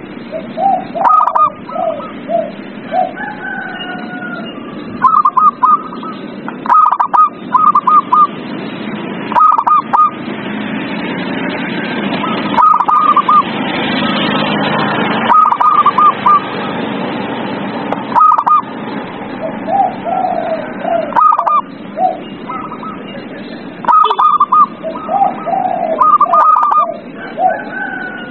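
Zebra doves (perkutut) singing, with clusters of quick, stuttering cooing notes repeated every second or two, over a steady background rush that swells in the middle.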